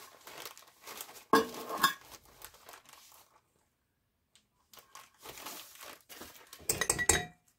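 Packaging being handled off-camera, crinkling and rustling in two spells with a quiet gap between them. A short ringing clink comes near the end.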